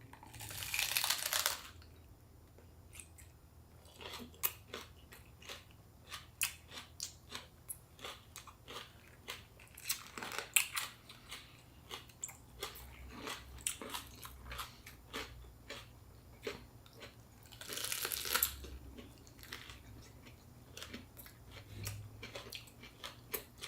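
Close-up chewing and crunching of fresh spring rolls stuffed with raw lettuce, cucumber and bean sprouts, with many short, irregular mouth clicks and crunches. Two longer hissy rustles come just after the start and about 18 seconds in.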